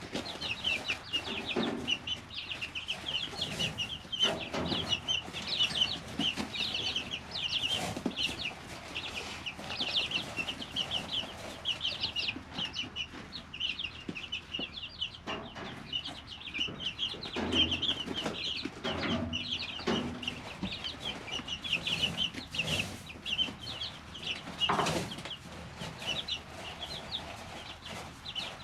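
A brood of three-week-old chicks peeping continuously, many short high cheeps overlapping, with scattered scratches and scuffs from the chicks moving in the brooder.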